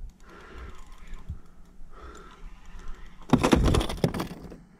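Fishing gear handled on a kayak: faint rustling and small clicks while the line is wound in, then a loud burst of clattering knocks about three and a half seconds in.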